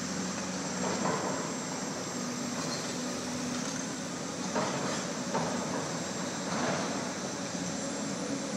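Diesel excavator engine running steadily, with a few short metallic clanks.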